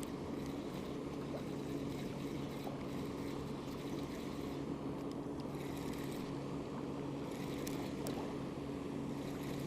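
A boat's motor running steadily, a constant low hum.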